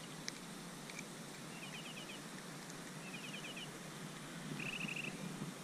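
A bird calling in three short trills of quick repeated high notes, about a second and a half apart, the last one buzzier, over faint outdoor hiss.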